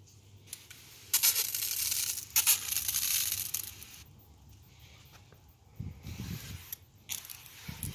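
Pressure sprayer wand spraying a fine mist of liquid onto a wooden fence: a loud hiss lasting about three seconds, briefly broken partway through. A few soft low thumps follow later.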